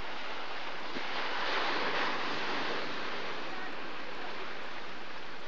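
Ocean surf breaking and washing up the beach: a steady rush of water that swells louder about one to two seconds in as a wave breaks.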